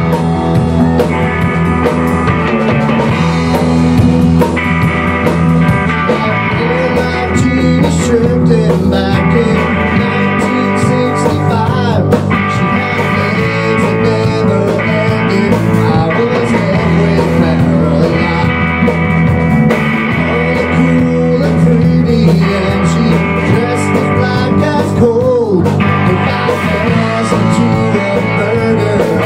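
Live rock band playing loudly and continuously: electric guitars over a full drum kit, in a blues-rock style.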